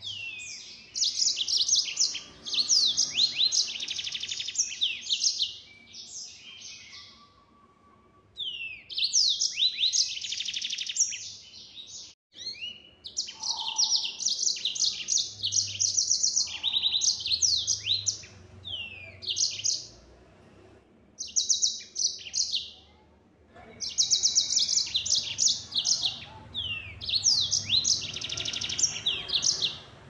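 Yellow-fronted canary singing in long, rapid, high-pitched trilling phrases, each several seconds long with brief pauses between them: full, continuous song.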